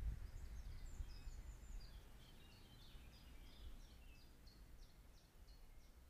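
Faint songbird chirping: a long run of short, high notes, each dropping in pitch, thick at first and then spaced a few per second, over a low rumble.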